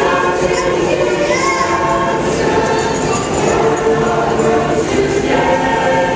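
Mennonite choir of men and women singing a cappella together, with long held notes.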